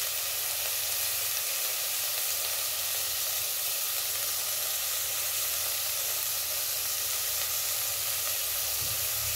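Chopped onion, carrot, tomato and herbs sizzling steadily in hot oil in a stainless steel pot.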